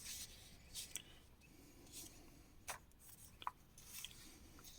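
Faint paper rustling and brushing as the pages of an old magazine are handled and turned, a few soft scrapes spread over the quiet.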